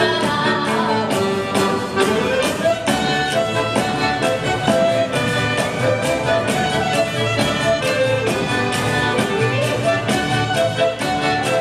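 Live Italian folk dance tune played by a small ensemble of flute, clarinet, organetto, double bass and hand percussion, with a steady, even beat under the melody and no singing.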